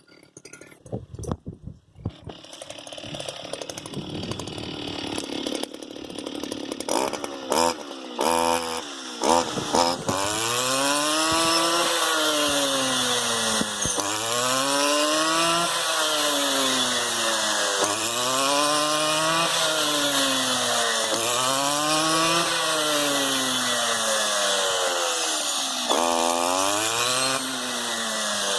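STIHL FR 230 backpack brush cutter's two-stroke engine revving hard a few times, then running with its speed falling and rising in a steady rhythm, about once every second and a half to two seconds.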